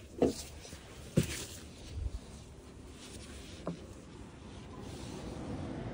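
Handling clicks and knocks from a hotel room window being opened: two sharp clicks near the start and about a second in, then a couple of softer knocks, over a low steady background that grows a little louder near the end.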